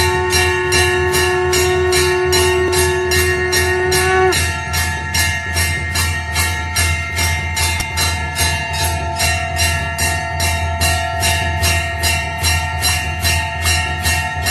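Temple bells (ghanta) rung without pause in a fast, even beat of strikes, with several ringing tones sustained over a steady low hum. About four seconds in, the lowest ringing tone cuts off and the other tones shift in pitch.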